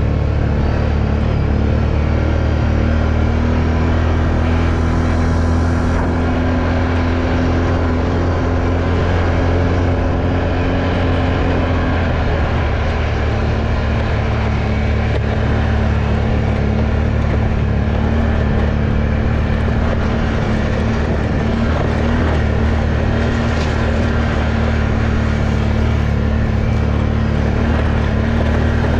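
ATV engine running steadily under way, heard from on board, its pitch dropping slightly about twelve seconds in.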